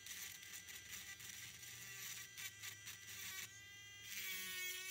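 Dremel rotary tool running with its bit grinding into fossil shell rock, a buzzing whine whose pitch wavers as the bit bites. It gets louder about four seconds in.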